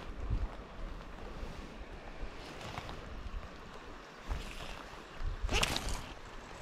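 Wind buffeting the microphone in low gusts over a steady rush of river water, with a brief louder noise near the end.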